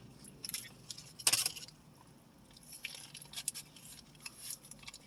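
Close-up eating noises: soft chewing with scattered small mouth clicks and crackles, and one louder, brief rustling burst about a second in.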